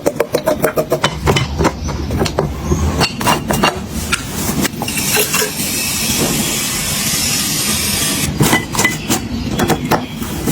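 Household items being handled: a fast rattle at first, then scattered clinks and knocks of glass and hard containers, with a steady hiss in the middle.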